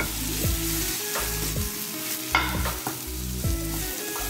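Chopped onions sizzling gently in a little oil in a frying pan while being stirred, with short scrapes and knocks of the stirring spoon on the pan every half second or so. The onions are at the softening, turning-translucent stage, not browning.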